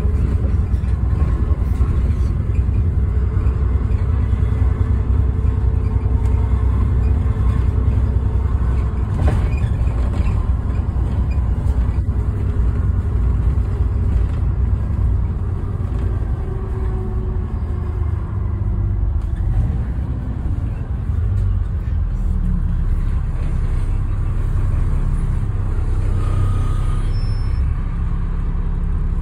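Double-decker bus in motion, heard from its upper deck: a steady low engine and road rumble with a faint whine that shifts in pitch, easing slightly about twenty seconds in before building again.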